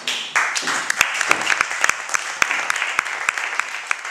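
A small audience applauding: steady hand-clapping that starts at once, with single sharp claps standing out from the rest.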